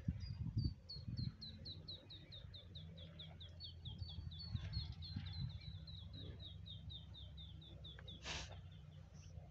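A bird calling in a long, even series of short high notes, about four a second, slowly dropping in pitch, over a steady low rumble; a brief hiss sounds near the end.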